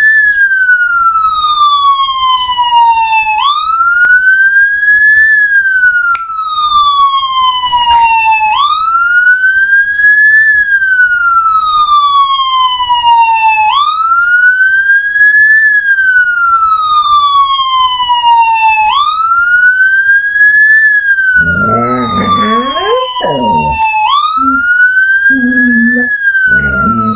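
Wailing emergency-vehicle siren, its pitch jumping up, climbing to a peak, then sliding slowly down, repeating about every five seconds. About 21 seconds in, a pit bull mix dog howls along with it, followed by a few shorter howls near the end.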